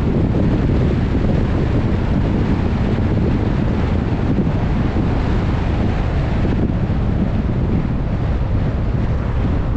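Wind rushing over the microphone of a GoPro on a moving vehicle: a steady, loud, low rumble of noise with no distinct tones.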